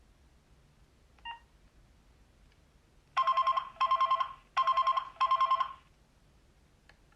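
Alcatel OT 735 mobile phone playing one of its built-in ringtones: a single short beep, then four quick trilling rings in two pairs, like a classic telephone ring.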